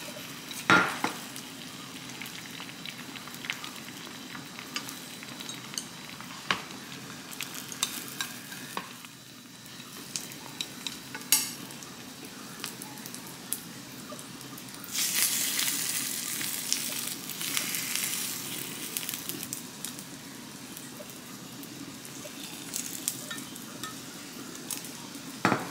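Crab sticks coated in beaten egg frying in oil in a nonstick pan, with a steady sizzle and a few sharp clicks of utensils. The sizzle grows louder for a few seconds about fifteen seconds in.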